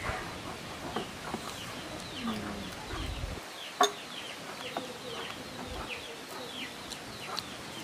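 Chickens clucking in the background, with many short, high, falling chirps repeating throughout. One sharp click stands out about four seconds in.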